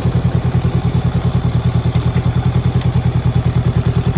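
Honda Rebel 500's parallel-twin engine idling with a steady, even throb.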